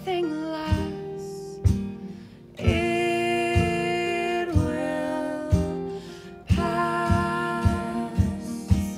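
Live acoustic folk song: two acoustic guitars strummed with a strong accent about once a second, under two women's voices singing together. The singing breaks briefly about two and a half seconds in and again about six and a half seconds in.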